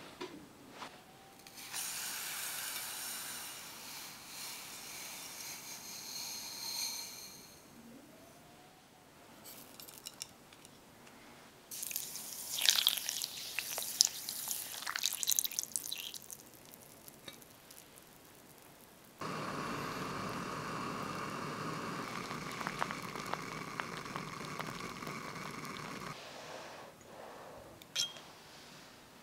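Water poured onto chestnuts and brown sugar in a pot, splashing unevenly for about four seconds midway; this is the loudest sound. Before it comes a softer rushing sound lasting several seconds, and after it a steady hiss of about seven seconds that stops abruptly.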